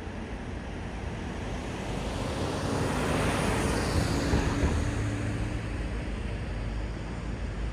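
Road traffic at a city intersection: a vehicle passes close by, its tyre and engine noise swelling to a peak about halfway through and fading again, over a steady low engine rumble.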